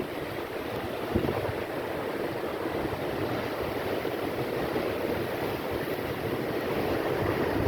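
Storm surf washing and crashing against an embankment, with wind buffeting the microphone: a steady rushing roar with a short low thump a little over a second in.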